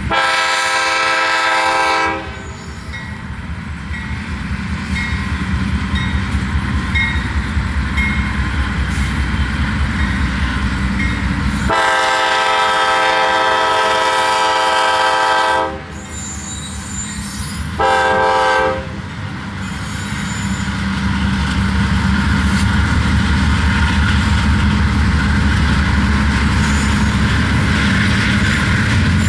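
Horn of a pair of GE AC4400CW diesel locomotives blowing three blasts: a long one at the start, a longer one about 12 seconds in and a short one about 18 seconds in. Between and after the blasts, the locomotives' diesel engines and the train's wheels on the rails are heard passing close by, growing louder toward the end.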